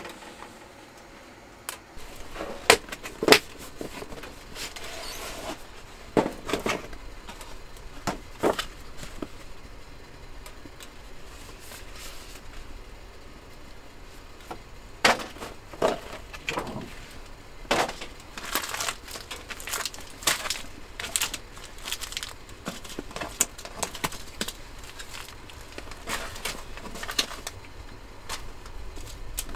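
A cardboard meal-kit box and its plastic-wrapped packets being unpacked by hand: irregular crinkling and rustling of plastic and paper, with light knocks of packets and box on a table, more frequent in the second half.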